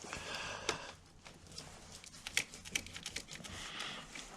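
Hand tool working a car battery terminal clamp: irregular sharp metallic clicks and scraping as the 10 mm nut is loosened and the terminal is worked off the post.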